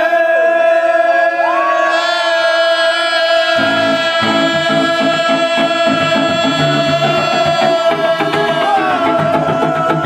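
Live rock band playing loud: electric guitar holding long distorted notes, with drums and bass coming in heavily about three and a half seconds in.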